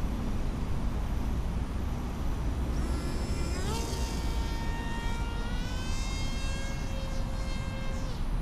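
Small electric RC flying wing's motor and propeller spinning up at launch: a high whine that rises sharply about three seconds in, then holds with slow shifts in pitch as the throttle changes, and drops away near the end. Low wind rumble on the microphone throughout.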